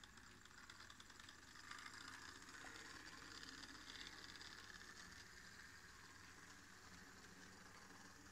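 Faint, steady running of an HO-scale model train, its locomotive motor and wheels whirring on the track, easing off slightly as it moves away.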